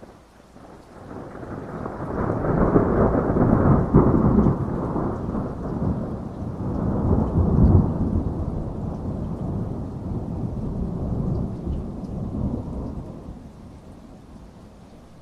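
A thunderclap rolling over steady rain. The low rumble builds over the first couple of seconds, swells twice, and dies away near the end, leaving the rain's hiss.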